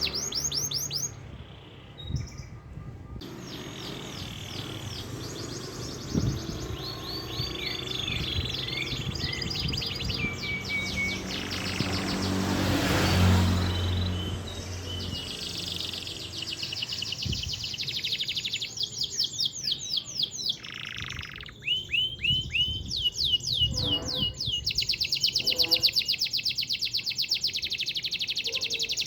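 Domestic canary singing: long rolling trills of fast repeated notes, scattered phrases at first and then dense, continuous rolls over the second half. A low rumble swells and fades about halfway through.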